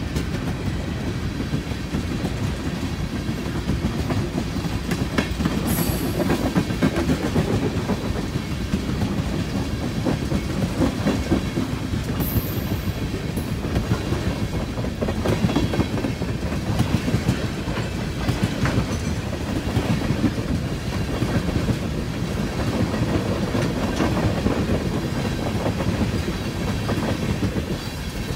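Freight train of tank cars rolling past close by: a steady rumble with the wheels clicking over the rail joints, and brief high-pitched squeals about six and twelve seconds in.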